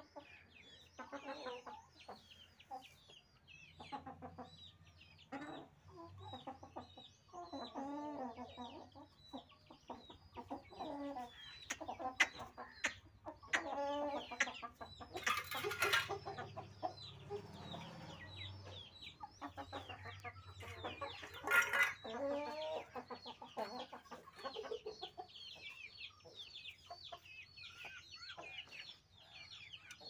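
Aseel chickens clucking in a pen: many short repeated calls, with a louder burst of noise about halfway through and another a few seconds later.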